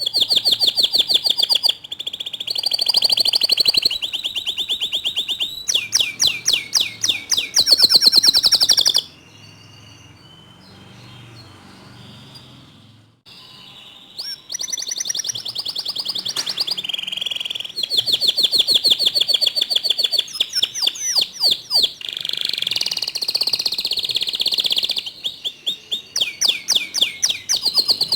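Domestic canary singing a long, loud song of rapid rolling trills, each a fast run of repeated notes, switching from one trill to the next. The song breaks off for about five seconds near the middle, then starts again.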